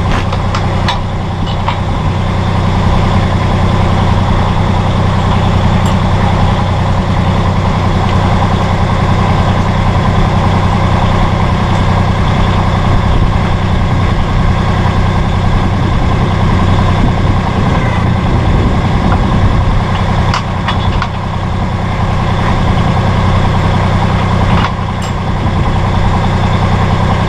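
Massey Ferguson GC1725M sub-compact tractor's three-cylinder diesel engine running steadily, with a few light clicks or knocks over the top.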